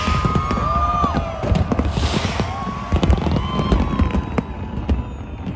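New Year fireworks going off: a rapid run of bangs and crackles, with two bursts of hiss and gliding whistles.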